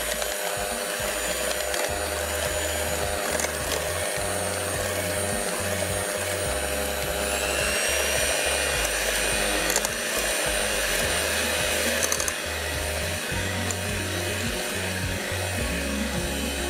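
Electric hand mixer running steadily, its beaters whisking a runny cake batter of mashed banana, sugar, oil and eggs in a glass bowl, with a few brief clicks. The batter is being beaten until the sugar dissolves.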